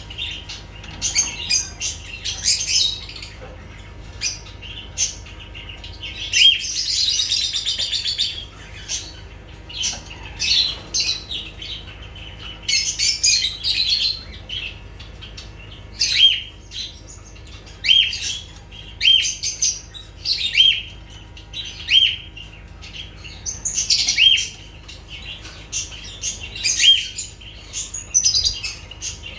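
Lovebirds chirping and chattering, with a dense burst of chatter a few seconds in. About halfway through it settles into a run of sharp, near-identical calls, roughly one a second.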